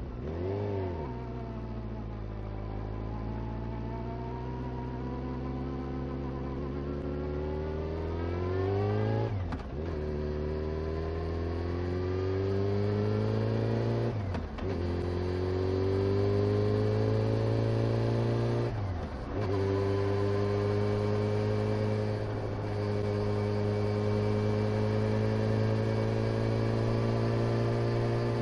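Honda CBR motorcycle engine accelerating up through the gears. Its pitch climbs in each gear and drops sharply at three upshifts, about a third, halfway and two-thirds of the way through, then holds fairly level at a steady cruise. Near the start the revs briefly rise and fall.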